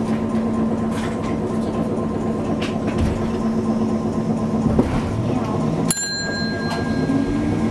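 Hankai Tramway streetcar running, its steady motor hum and rumble heard from aboard. About six seconds in comes a sharp click that rings on briefly in high tones, and then the motor pitch rises as the tram picks up speed.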